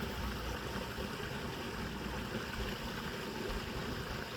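Steady rushing of a shallow flowing stream, even and unbroken.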